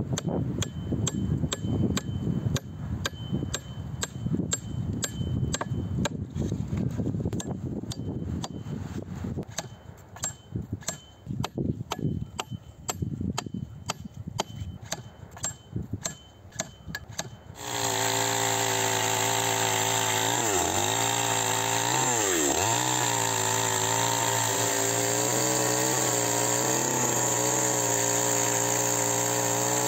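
Repeated hatchet blows on a wooden log, about two a second. Just over halfway through, a chainsaw takes over, running steadily at high revs, its pitch dipping briefly twice.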